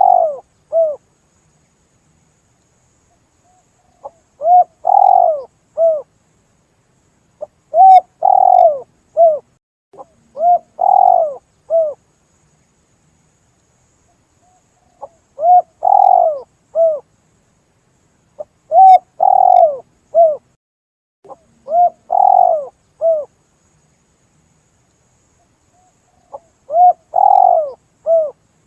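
Spotted dove (tekukur) cooing, used as a lure call: short phrases of three or four low coos with the middle note loudest, repeated every three seconds or so, with a few longer pauses between.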